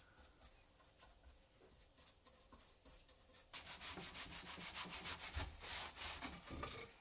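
A hand rubbing a pad back and forth over a plywood panel in quick, even strokes, starting about halfway in, after a few faint handling clicks.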